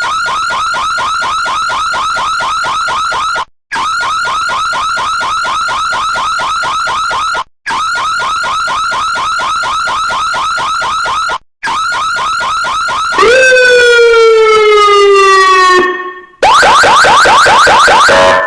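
A run of emergency-vehicle siren clips played one after another. First come three segments of a fast yelp, rapid repeating pitch sweeps, each about four seconds long and separated by brief gaps. About thirteen seconds in, a louder siren gives one slow wail that rises and then falls, and then a fast yelp again.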